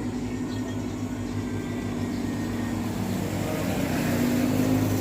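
A motor vehicle engine running steadily, growing louder near the end.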